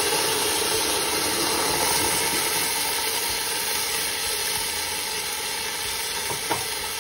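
Pan of onions, curry leaves and spices in coconut oil sizzling steadily just after coconut milk goes in, the sizzle slowly getting quieter. A single light tick near the end.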